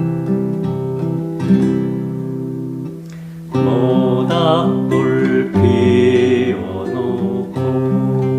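Acoustic guitar music with strummed chords. About three and a half seconds in, a louder, wavering melody comes in over the guitar.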